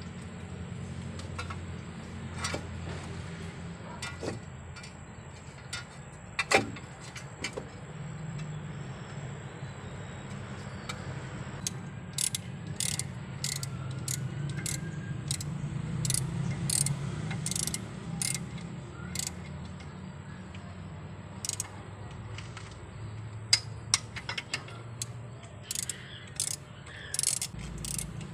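Metal hand tool clicking and tapping against engine parts, in irregular runs of sharp clicks that grow more frequent in the second half. A steady low hum runs beneath.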